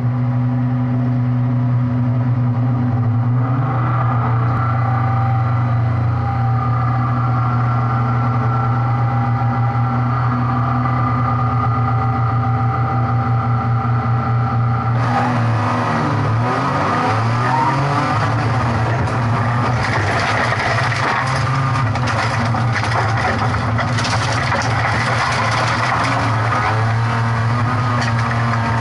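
A rally car's engine heard from inside the cabin, running at a steady pitch while the car waits at the start for about fifteen seconds. The car then launches, and the engine revs up and down hard through the gears, joined by loud gravel and tyre noise from the dirt track.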